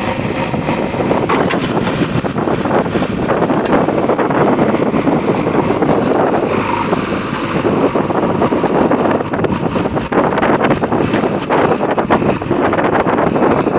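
JCB backhoe loader's diesel engine running steadily, with wind buffeting the microphone.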